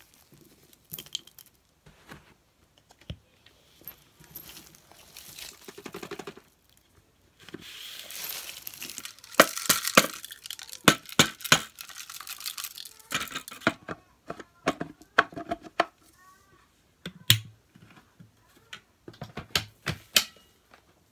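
Packed dust, hair and grit being emptied out of a vacuum cleaner's dust bin onto carpet: dry rustling and crackling with many small hard clicks, densest and loudest for several seconds in the middle, then scattered clicks.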